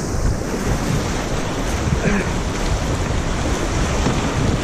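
Rushing whitewater of a river rapid churning around a kayak, a steady loud wash, with wind buffeting the microphone.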